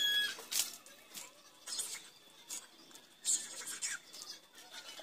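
Water thrown from a plastic dipper splashing over a tricycle's metal sidecar and motorcycle, in a few separate splashes about a second apart.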